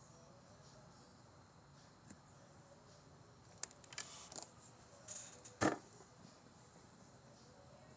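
A steady, high-pitched insect chorus, likely crickets, runs throughout. Midway it is broken by a few sharp clicks and then one louder knock.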